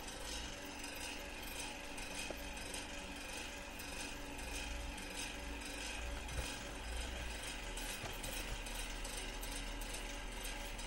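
Electric fan running steadily: a constant hum and hiss, with a few faint taps from handling a boxed vinyl figure.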